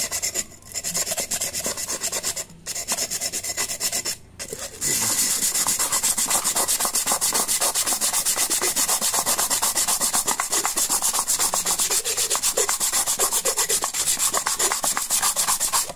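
Cut rim of a glass bottle being rubbed back and forth on wet sandpaper: quick, even rasping strokes. There are three short breaks in the first five seconds, then the strokes run on without pause. This is the wet-sanding that smooths the sharp cut edge.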